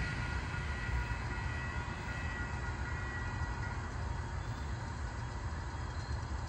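Cuyahoga Valley Scenic Railroad diesel-hauled passenger train running along the track with a steady low rumble.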